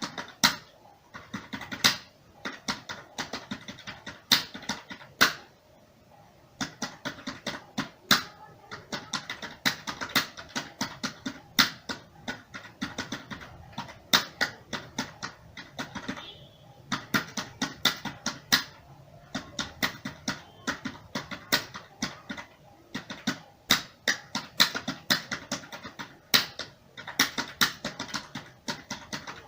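Typing on a computer keyboard at about 45 words per minute: a quick, uneven patter of clicking keystrokes with some harder strokes and a few pauses of about a second.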